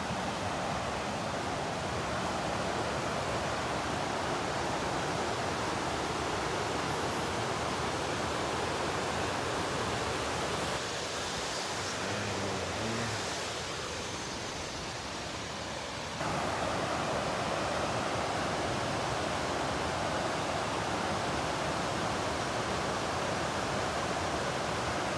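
A small waterfall on a fast-flowing stream, its water rushing in a steady, even roar. It gets suddenly louder about two-thirds of the way through.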